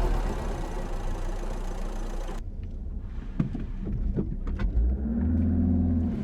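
Car engine revving with a loud rush of exhaust, which cuts off abruptly about two seconds in as the throttle is released. The engine then settles low while the exhaust gives a handful of sharp pops and crackles, before it revs up again near the end.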